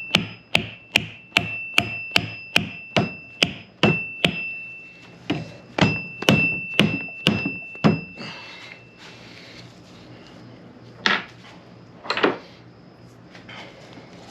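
Rubber mallet tapping a greased seal into the rear axle housing. About a dozen steady blows come at roughly two and a half a second, then a short pause and another run of blows, each leaving a brief metallic ring. Two more knocks come near the end.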